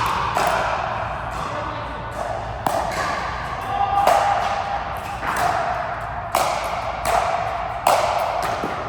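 A racket-sport rally in an echoing court: sharp ball strikes, irregular and roughly once a second, each ringing briefly. A short squeak comes about four seconds in.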